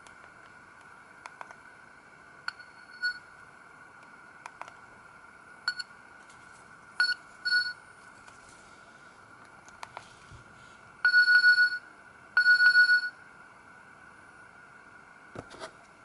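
Nokia 2300 mobile phone keypad being pressed: soft key clicks and several short key beeps while stepping through the menu. About 11 s in come two longer, louder beeps a second and a half apart, the message alert tone playing as it is chosen in the settings.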